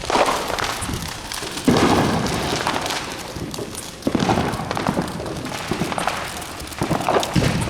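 Fireworks exploding: about four loud bangs, at the start, just under 2 seconds in, about 4 seconds in and near the end, each trailing off in a rumbling, crackling decay.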